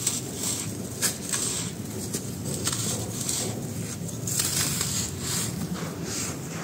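Dry sand-cement chunks crumbled by hand: a run of short, crisp crunches and crackles with grit and powder sifting through the fingers, the sharpest crunch about a second in. A steady low rumble runs underneath.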